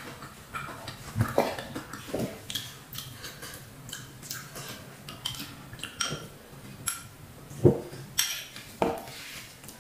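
Close-up eating sounds: chewing, with a metal spoon clinking and scraping against a ceramic bowl in irregular short clicks, the sharpest about three quarters of the way through.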